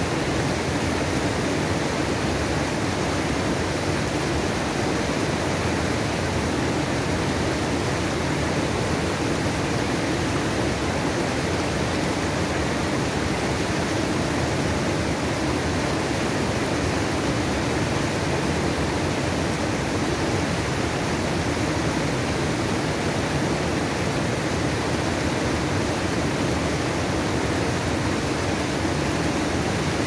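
Small waterfall and a fast, swollen stream rushing over rocks, a steady, unbroken rush of water. The stream is running high with spring snowmelt.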